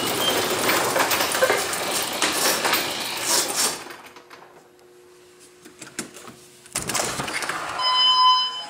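Overhead sectional garage door running down and shutting with a loud rattle that stops abruptly about four seconds in. A faint steady hum follows, and a short electronic beep sounds near the end.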